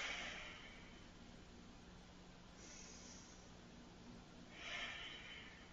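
A woman taking slow, deep breaths, faint. Three breaths are heard, at the start, about three seconds in and near the end, and the last is the loudest.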